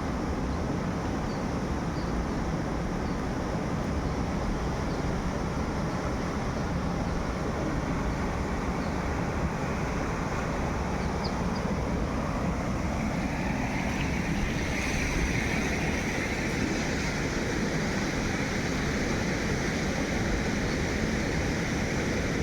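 Steady rushing noise, heaviest in the low end, turning brighter and hissier about two thirds of the way through.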